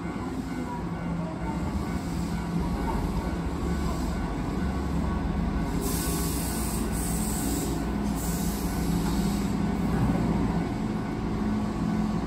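Keihan 2200-series electric train at a station platform: a steady low rumble and hum that grows slightly louder, with a few short bursts of hiss about six to nine seconds in.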